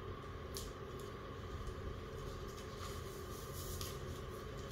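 Steady low room hum with a faint constant tone, and a few faint light clicks.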